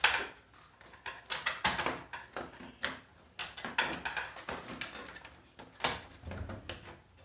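Plastic keyboard housing and its parts being handled during disassembly: an irregular run of clicks, knocks and rattles, the loudest at the start and about six seconds in.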